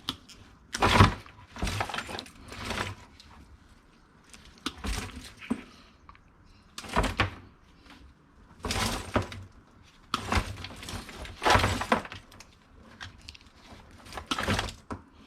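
Scrap items being handled and dropped into bins: irregular clattering knocks and thuds, about nine separate ones with short quiet gaps between.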